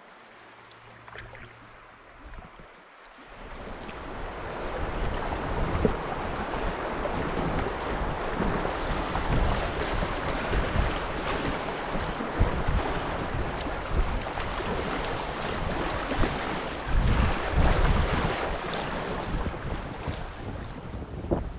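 Fast-flowing river water rushing around a canoe, with wind buffeting the microphone. It is quiet for the first three seconds or so, then loud and steady for the rest.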